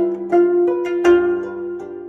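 Background music: a gayageum (Korean plucked zither) playing a slow serenade melody, single plucked notes ringing and decaying, about two or three a second.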